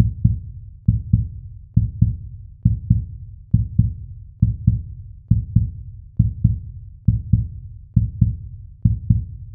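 Deep double thumps in a heartbeat rhythm, one pair about every 0.9 seconds, each thump dying away quickly: a cinematic heartbeat pulse in the intro soundtrack.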